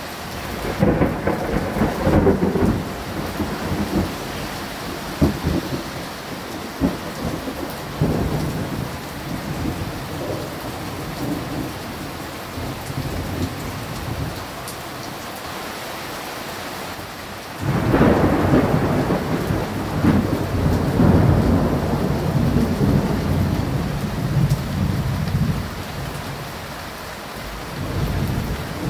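Thunder rolling over steady rain: a rumble about a second in, then a sudden louder peal about two-thirds through that rolls on for several seconds, with rain falling throughout.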